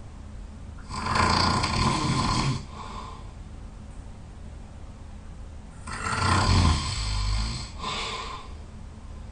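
A person snoring loudly in sleep: two long snores about five seconds apart, each followed by a shorter, softer one.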